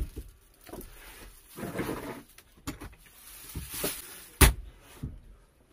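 Shopping being handled and put away: scattered knocks and thuds, with one sharp bang about four and a half seconds in, like something set down hard or a door or lid shut.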